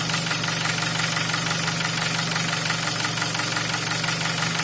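Nissan QG18DE 1.8-litre four-cylinder engine idling steadily at operating temperature, with a fast even ticking chatter that the owner puts down to the LPG gas injectors, over a knock he locates in the lower part of the engine.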